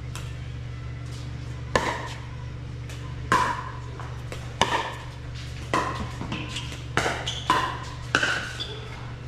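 Pickleball rally: sharp pops of paddles striking the hard plastic ball, about seven in all, roughly every second and a half at first and then quicker near the end as the exchange speeds up. A steady low hum runs underneath.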